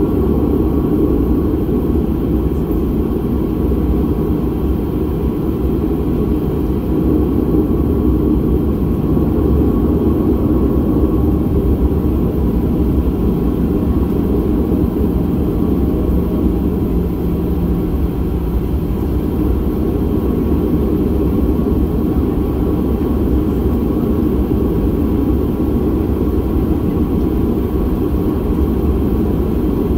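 Steady low rumble inside the cabin of a Boeing 737-800, its CFM56-7B engines running as the jet taxis slowly on the ramp, with a few faint steady whines.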